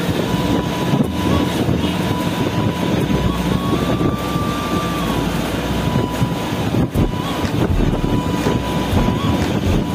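Cabin noise inside a moving AC coach bus cruising on a highway: a steady rumble of engine and road noise with a thin, steady whine running through it.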